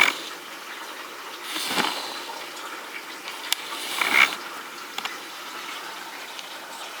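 Steady rain falling, with two louder swells of splashing water and a few sharp ticks of drops striking.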